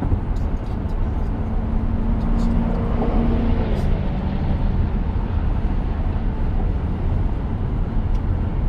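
Steady tyre and road noise inside the cabin of a moving Tesla Model X, an electric car with no engine note. A faint low drone swells and fades in the middle.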